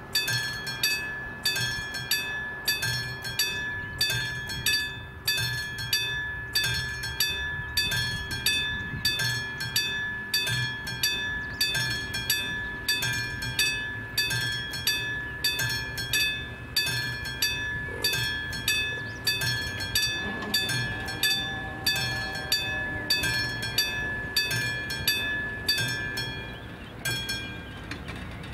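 Level crossing warning bell of an AŽD 71 crossing, ringing a steady run of dings about one and a half a second, each with a bright ringing tone. It falls silent a little before the end.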